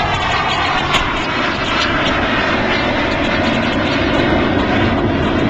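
Jet engine noise from a Blue Angels F/A-18 Hornet flying past: a loud, steady rush.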